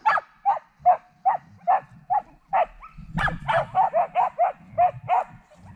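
A harnessed Samoyed sled dog barking repeatedly in excitement before the team sets off, short sharp barks about two a second that quicken about halfway through.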